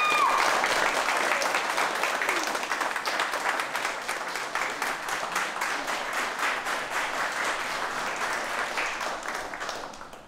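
A small group of people applauding with dense, fast clapping. It is loudest at first, with a whooping cheer trailing off at the very start, then slowly fades and stops suddenly at the end.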